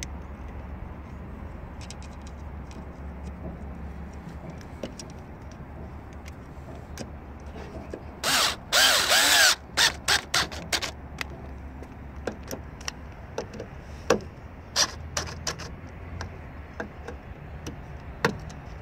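Cordless drill/driver tightening the lid screws of a fuel filter housing: one whir of about a second and a half, speeding up and slowing, starting about eight seconds in, then a string of short trigger pulses and sharp clicks as the screws are run tight.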